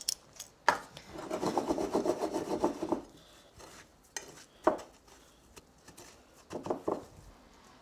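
Hands pressing and tossing crushed cornflake crumbs over a pork chop in a glass baking dish: a rasping, crunchy rustle, heaviest for about two seconds starting a second in, with a few sharp taps later on.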